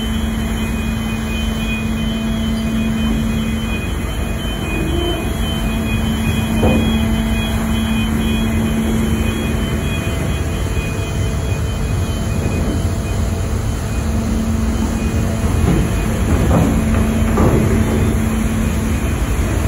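Ferry under way: its engines running with a steady low hum over the rush of the churning propeller wash behind the stern.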